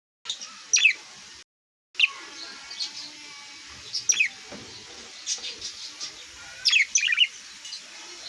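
Small pet birds chirping: short, high calls that sweep quickly down in pitch, spaced a few seconds apart, with a quick run of chirps near the end.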